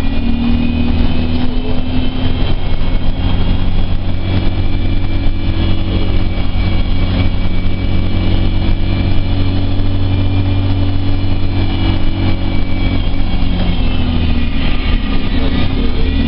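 Engine and drivetrain of an ADL Enviro 200 Dart single-deck bus heard from inside the passenger cabin as it drives. There is a steady low drone with a high whine over it, and near the end the whine rises as the bus picks up speed.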